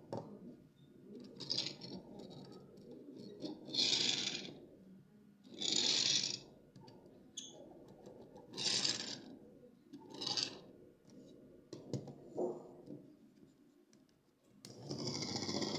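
Toy-car packaging being handled and opened by hand: a series of short scratching, scraping noises about every two seconds, with a longer one near the end.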